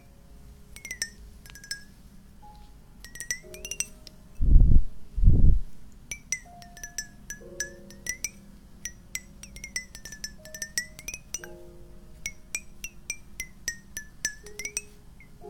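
Close-miked ASMR tapping and clinking on a cola container: many quick sharp taps with short ringing tones between them. Two loud, deep thumps come a little before the middle.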